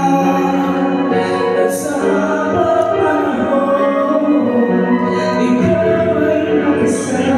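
A man singing into a handheld microphone over a music backing track, amplified.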